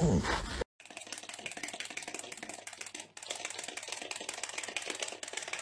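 A falling howl-like vocal glide cuts off abruptly. It is followed by a fast, steady run of rattling clicks from a small cat toy, which breaks off briefly about three seconds in.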